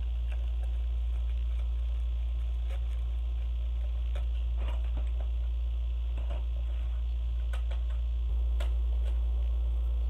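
Steady low electrical hum with a few faint, scattered clicks and rustles of small objects being handled.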